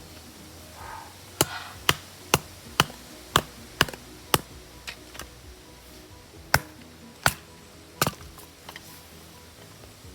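A series of sharp knocks, about two a second, starting a second or so in, thinning out, then three louder blows spaced under a second apart, over quiet background music.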